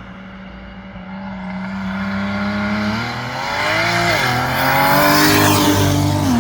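BMW E92 N54 twin-turbo inline-six exhaust, the car pulling away with rising revs. The engine note climbs, dips briefly about four seconds in as the revs change, climbs louder again, then drops near the end.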